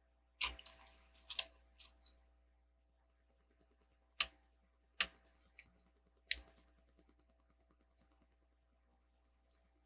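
Small plastic Lego pieces clicking as they are handled and fitted together. A quick run of small knocks comes about half a second in, followed by three single sharp clicks spaced roughly a second apart.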